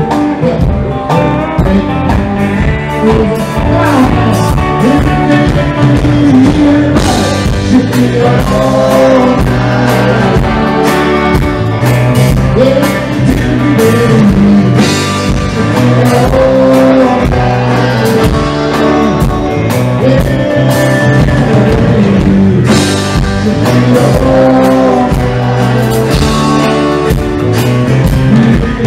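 Live southern roots rock band playing: electric guitar and drums.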